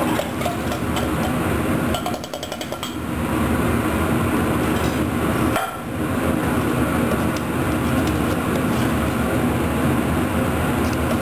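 Metal utensils clinking and scraping: a spoon scraping soup out of a tin can over an aluminium pot, and tongs knocking inside the pot, with a quick run of taps about two seconds in, over a steady background noise.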